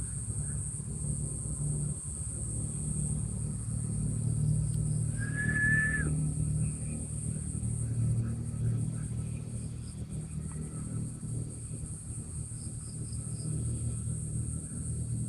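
Riverside outdoor ambience: a steady low rumble underneath a constant high insect drone, with short repeated bird chirps and one clear held whistled note about five seconds in.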